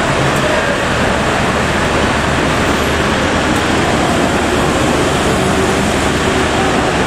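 Steady din of vehicle traffic in a covered concrete roadway: engines running at low speed as a kei truck and a kei van drive slowly past parked lorries.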